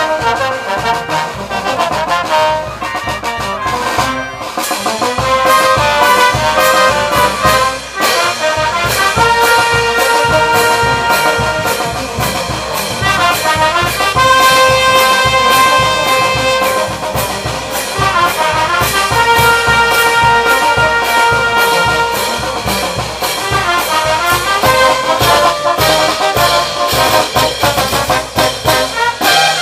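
Brass band playing dance music: trumpets, trombones and sousaphones sounding long held notes in phrases over a steady beat from the bass drum and snare drum.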